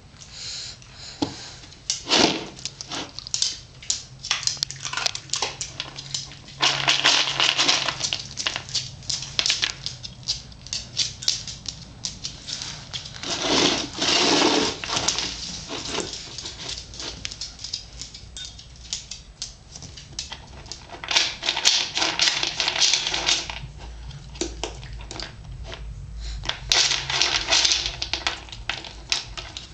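Dry dog kibble clicking and rattling in blue dog bowls as it is handled and eaten, in many small clicks with several louder rattling bursts.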